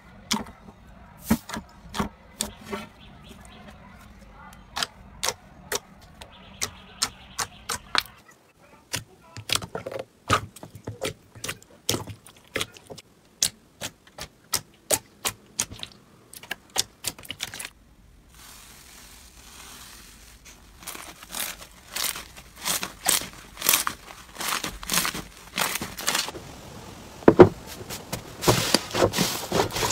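Slime being squeezed, stretched and poked, giving a steady run of sharp clicks and small pops, often several a second. It changes character twice, about eight seconds in and again about eighteen seconds in.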